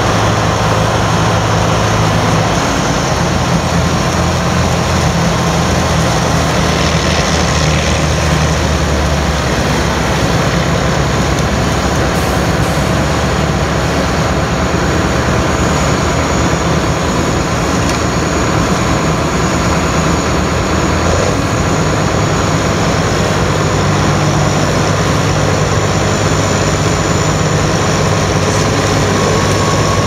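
Heavy diesel engines of farm machinery running steadily in the field, over a loud even noise. The low engine note shifts pitch a few times: about 2 s in, about 9 s in and about 21 s in.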